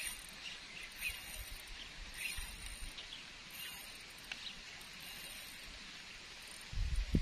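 Quiet outdoor ambience with scattered short bird chirps and a faint high hiss that comes and goes. A loud low rumble on the microphone starts near the end.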